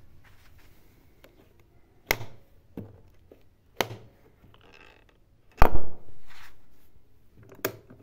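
A hand handling the plastic control panel of a Senci SC8000 generator makes a series of sharp clicks and knocks, about six of them. The loudest, a little past the middle, has a short ringing tail. The generator's engine is not running.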